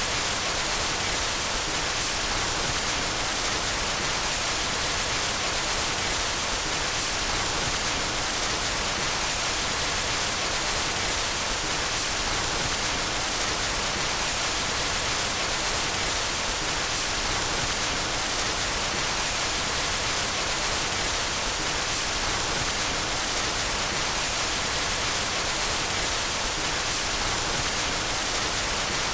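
Steady, unchanging white noise: an even hiss across all pitches, strongest in the highs.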